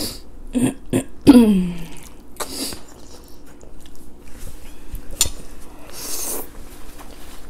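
Close-up mukbang eating sounds: spaghetti slurped and chewed, with light clicks of forks on plates. The loudest is a short vocal sound, falling in pitch, about a second in. Hissy slurps come about two and a half seconds in and again near the end.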